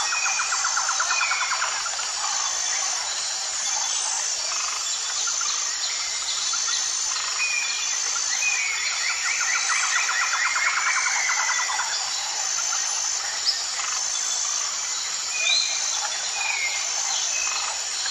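Outdoor nature ambience of birds and insects: short whistled bird calls, a rapid pulsed trill twice, and a steady high insect chirping underneath.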